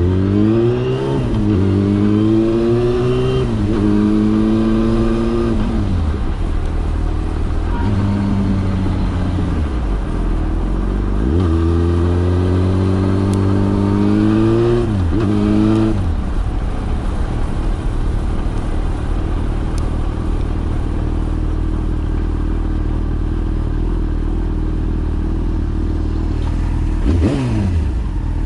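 Yamaha FZ6 inline-four motorcycle engine accelerating through the gears: the engine note climbs and drops sharply at each shift, four or five times, then holds a steady pitch. There is a quick drop-and-rise blip near the end.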